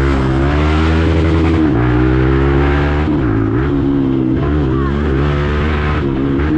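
Hero Xpulse motorcycle's single-cylinder engine running through an aftermarket Akrapovic exhaust while riding, its pitch dipping and rising again a few times as the throttle is eased off and opened.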